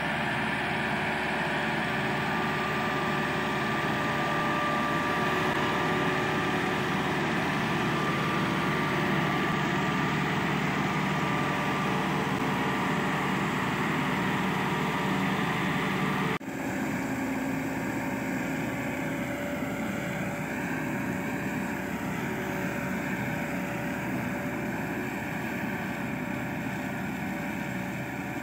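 Massey Ferguson tractor's diesel engine running steadily under load, driving a rear-mounted rice straw chopper through rice stubble. There is a brief dip just past halfway, after which the sound carries on slightly changed.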